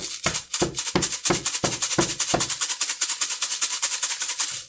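Rapid, even rattling like a shaker, about five strokes a second. It starts and stops abruptly.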